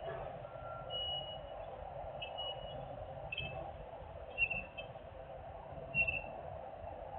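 Vehicle backup alarms beeping, several at slightly different pitches and out of step with each other, over a steady drone of machinery.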